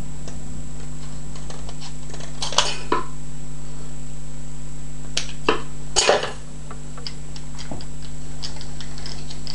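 Steady electrical hum with a handful of sharp metallic clicks and snips, the loudest about six seconds in, from a strip of steel tape-measure blade being cut and handled to make a padlock shim.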